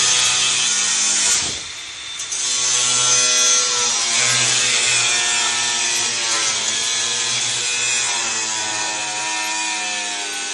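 Cordless angle grinder with a cut-off wheel cutting 12-gauge stainless steel sheet: a steady, loud grinding whine that eases off briefly about one and a half seconds in and then resumes under load.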